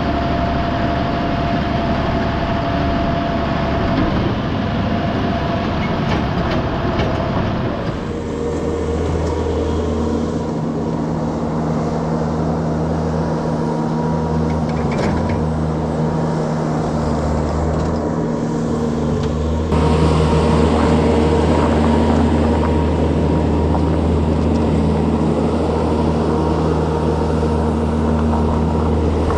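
Tractor engine running steadily, with abrupt changes in its note about eight and twenty seconds in.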